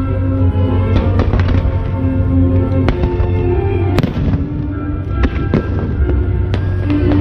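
Fireworks shells bursting with sharp cracks, several in quick succession about a second in, a loud one about four seconds in and a dense run near the end, over loud music with a heavy bass.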